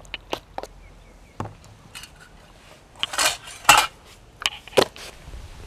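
Metal spoon clinking and scraping against a stainless-steel mixing bowl while stirring chicken pieces in batter. There are several sharp clinks and one longer scrape about three seconds in.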